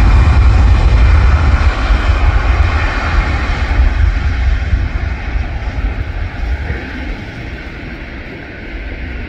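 Airliner taking off: a loud, steady engine roar with heavy low rumble that fades away over the second half as the aircraft departs.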